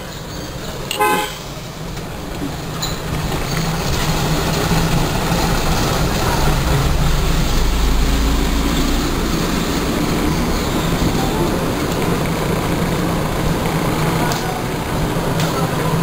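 Road traffic noise: a steady wash with a low engine rumble that grows louder through the middle and then eases, and a short horn toot about a second in.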